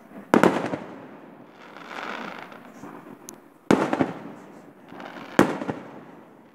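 Aerial firework shells bursting: three sharp bangs, about a third of a second in, just before four seconds and about five and a half seconds in, each trailing off in a fading echo.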